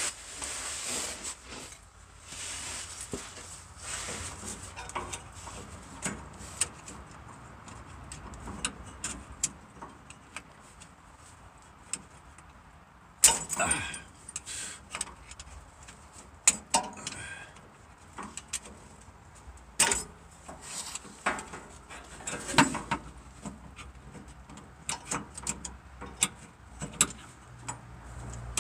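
Scattered clicks, taps and scrapes of a hand tool prying at the quick-connect fuel line fitting on the fuel filter, working its safety clip loose, with a few louder scuffs and rattles.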